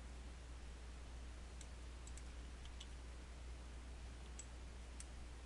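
Faint clicks of a computer mouse and keyboard, about six of them at uneven intervals, over a steady low hum and hiss.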